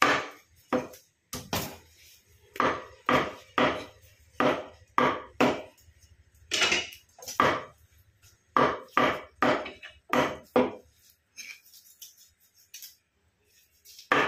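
Butcher's cleaver chopping chicken into curry-cut pieces on a wooden log chopping block: a run of sharp chops, often two or three in quick succession, going quiet for a few seconds near the end before one more chop.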